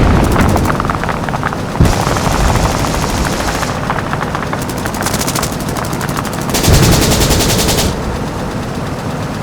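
Added war sound effects: several bursts of rapid machine-gun fire over a steady low rumble.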